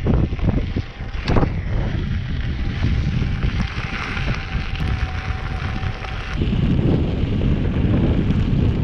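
Wind rushing over the microphone of a camera riding along on a Veteran Sherman electric unicycle on a gravel track. About six seconds in the sound changes abruptly and becomes louder and lower.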